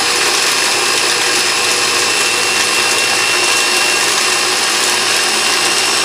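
Electric mini food processor running steadily, its blade grinding pork rinds into crumbs, with a high motor whine over the whirring.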